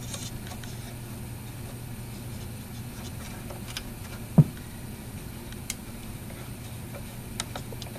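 Steady low hum from a running, warmed-up HP AN/USM-281A oscilloscope, with a few faint clicks and one soft thump about four and a half seconds in as its front-panel controls are handled.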